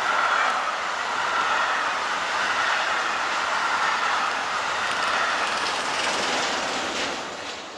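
Intermodal freight train of semitrailers on pocket wagons rolling past: steady wheel-on-rail noise with a steady high-pitched ring, fading away as the last wagon passes about seven seconds in.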